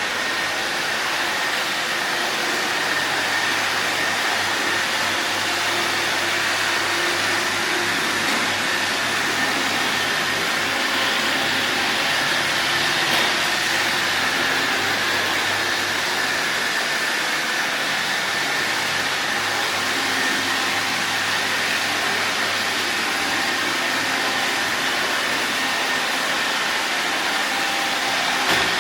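Robot vacuum cleaner running steadily: an even motor-and-suction noise with a thin high whine, and a single brief knock near the end.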